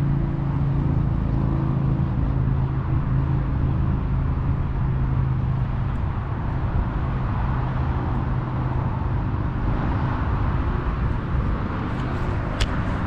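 Steady low rumble of distant motor traffic, with an engine hum that fades away over the first several seconds.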